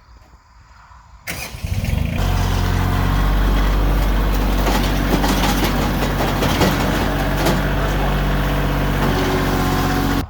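Bobcat CT2025 compact tractor's diesel engine running loud and steady at close range, coming in suddenly about a second in.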